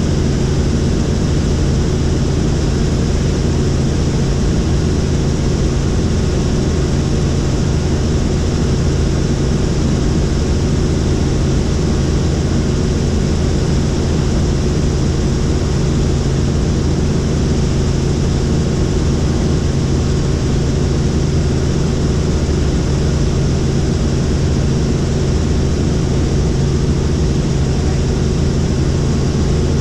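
Helicopter in flight heard from inside the cabin: a loud, steady, unchanging drone of engine and rotor with a low hum underneath.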